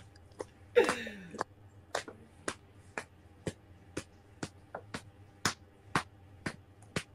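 A steady run of sharp clicks, two a second, like a sparse beat, starting about two seconds in. About a second in, a short vocal sound slides down in pitch.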